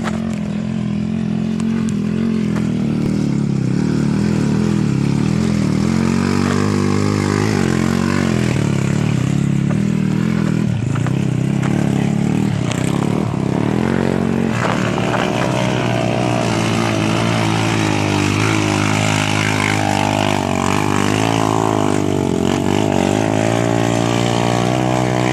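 A motor vehicle's engine running steadily while driving off-road, its pitch rising and falling a little with the throttle.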